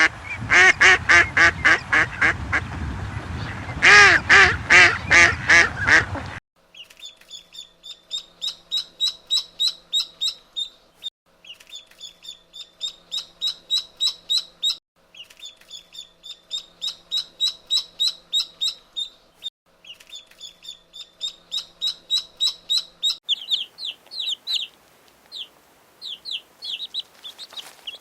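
Loud waterfowl quacking and honking in quick repeated calls, ending abruptly about six seconds in. Then come bursts of rapid high-pitched bird chirping, each lasting a few seconds with short pauses between, and sparser chirps near the end.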